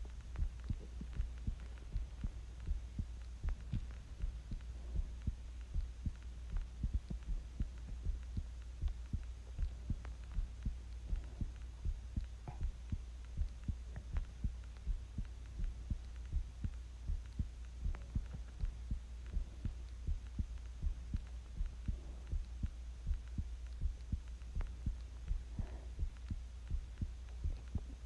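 Human heartbeat recorded close up: a steady, regular train of low thumps over a constant low hum.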